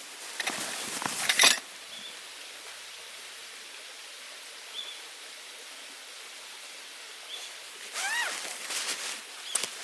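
Rustling and crinkling of gear being handled for about a second and a half, then a steady outdoor hiss with a few short high chirps. About eight seconds in comes a single louder call that rises and falls.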